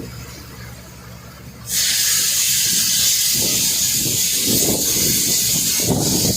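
Water gushing out under pressure: a loud, steady, high hiss that starts abruptly about two seconds in, with voices talking faintly underneath.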